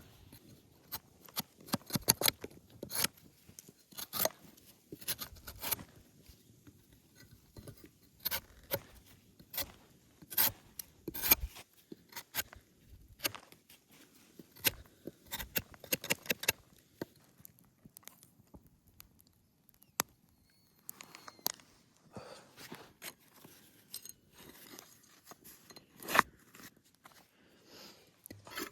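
Close, irregular crackling, tearing and scraping from handling food, such as bread being torn and an orange peeled and eaten. The noises come in dense clusters for the first half, thin out into a quieter stretch, and a single louder crack comes near the end.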